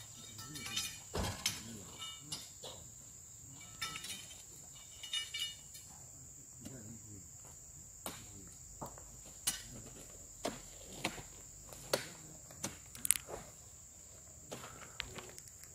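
Irregular knocks and thuds as oil palm fruit bunches are jabbed with a pointed pole and handled onto a truck, over a steady high insect whine.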